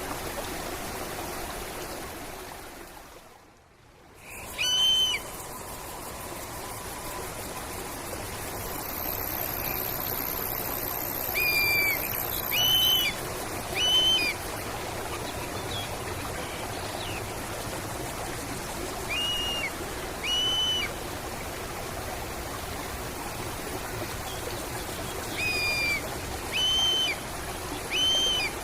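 Nature sound recording of a stream running steadily, with a bird giving short, clear whistled calls, mostly in twos and threes. The water sound dips out briefly a few seconds in, then returns.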